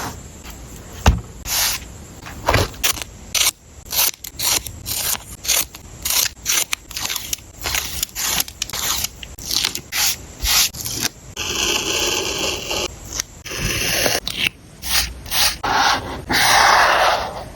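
Paper and stationery being handled during journal making: a run of short scraping and rustling strokes, with two longer scrapes about two-thirds of the way in and near the end.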